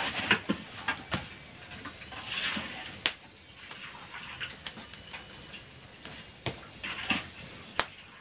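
Metal spatula and wire strainer tapping and scraping on a wok as puffed kerupuk crackers are lifted out of the frying oil. There are a handful of separate sharp clinks spread through, with short hissing patches between them.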